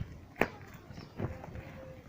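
Goats moving about a pen, with step-like shuffling and one sharp knock less than half a second in, and a faint held call-like tone near the end.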